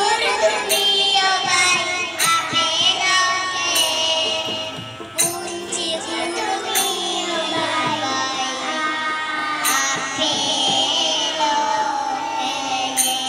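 A group of small children singing a song together in unison, accompanied by a harmonium holding sustained chords, with a few sharp percussive hits now and then.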